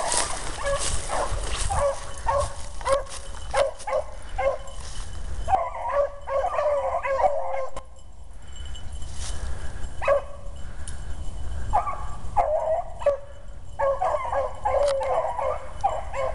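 Beagle hounds baying in repeated bursts as they run a rabbit's trail. There is a lull of about two seconds around the middle, then the voices pick up again.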